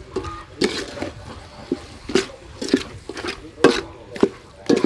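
Metal ladle stirring raw duck pieces and yellow spice paste in a large aluminium pot, knocking and scraping against the pot about twice a second, with wet squelching of the meat between strokes.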